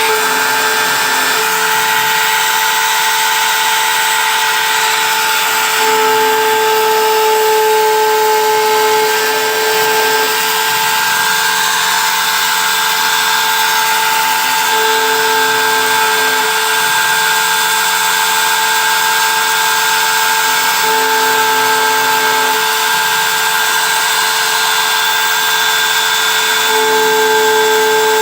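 CNC engraving machine running, a steady high whine with cutting noise, while a lower motor tone swells and fades in several stretches as the machine moves.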